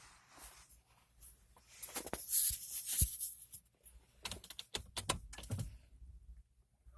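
Irregular clicking, knocking and rustling, loudest about two to three seconds in, with no steady tone.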